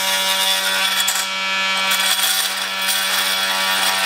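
Milwaukee 18-volt cordless oscillating multi-tool running with a wood blade, cutting through a plastic license-plate light housing: a steady buzz with the rasp of the blade in the plastic.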